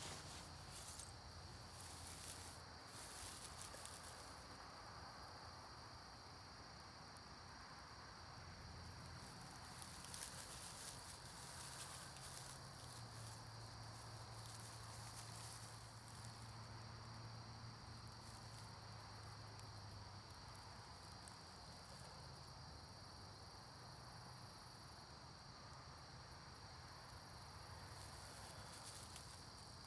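Faint, steady high-pitched trilling of insects. Now and then it is joined by a soft crackly rustle of dry grass tinder being handled, near the start and again about ten seconds in.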